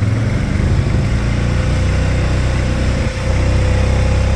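Honda Rubicon 520 ATV's single-cylinder engine running steadily while the machine plows light snow, with a faint whine that comes in about a second and a half in and creeps up a little in pitch.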